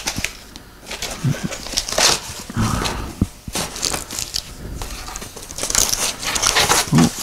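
A cardboard shipping box being opened by hand: tape pulled off and flaps folded back, with irregular crinkling, scraping and rustling of cardboard and a few knocks.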